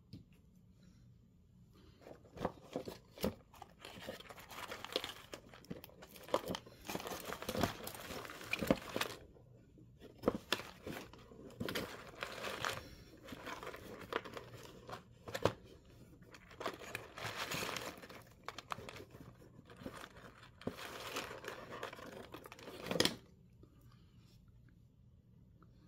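Rustling and crinkling handling noise with scattered small clicks, coming in irregular bursts. It starts a couple of seconds in and stops a few seconds before the end, likely from hand-handling of wire or parts out of view during breadboard circuit assembly.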